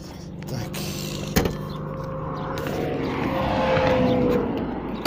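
IZh-2126 Oda hatchback's engine running, its note rising and getting louder in the second half as the car is driven off, with one sharp knock about a second and a half in.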